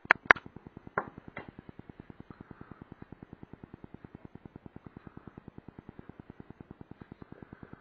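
A few sharp clicks as the small glass varnish bottle and its brush cap are handled, the loudest two close together at the start and two weaker ones about a second in. Under them a faint, fast, even ticking runs on.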